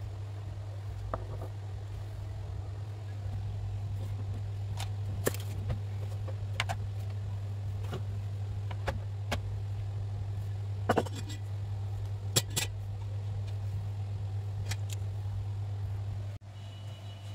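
A steady low hum with scattered light clicks and taps, a few of them sharper in quick pairs; the hum drops away abruptly near the end.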